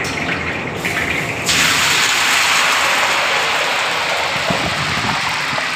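Hot oil sizzling and bubbling in a black kadhai for deep-frying, a dense steady hiss that gets suddenly louder about a second and a half in.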